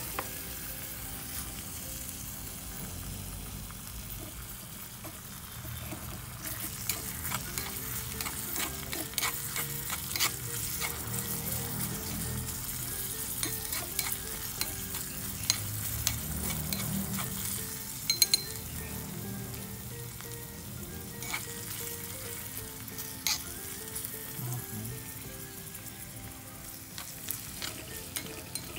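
Chopped onion, garlic and ginger sizzling in a miniature metal wok, with a steady hiss. A small metal spatula scrapes and taps against the pan as it stirs, the clicks coming thickest in the middle stretch.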